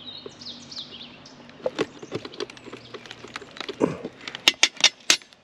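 A bird chirps a run of quick falling notes in the first second. Then come scattered sharp clicks and knocks, loudest in the last couple of seconds, as a wrench and hands work at the plastic release tab on a truck mirror housing.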